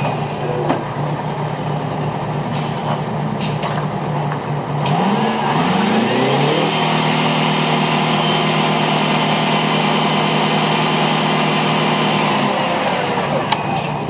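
Pulling unit's engine running, revving up about five seconds in and holding the higher speed for several seconds before dropping back, as the rig hoists tubing out of the well. A few sharp metal clanks come in the first five seconds.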